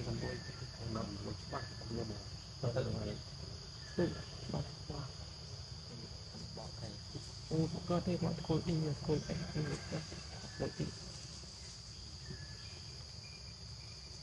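Steady high-pitched insect drone, with short, low voices breaking in now and then, most often about two-thirds of the way through.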